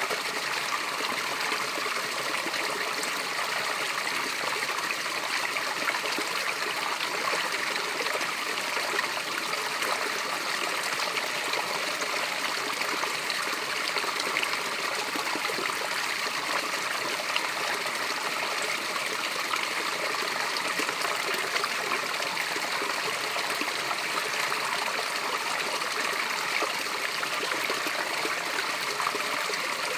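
Natural water cascade: water falling and running steadily, an even rushing splash with no pauses or changes.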